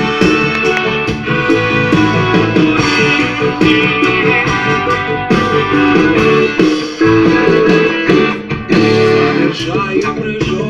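Instrumental introduction of a song: guitar-led band music with a steady beat.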